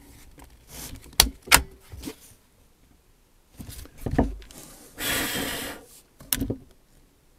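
Tikka T1X .22 bolt-action rifle being handled after a string of shots: a few sharp clicks of the bolt being worked, a knock, a rustling noise about a second long, then a couple more clicks.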